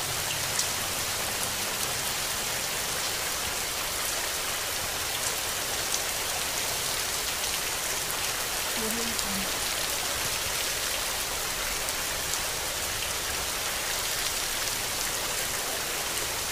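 Heavy rain falling steadily on leaves and foliage: an even hiss dotted with the ticks of individual drops.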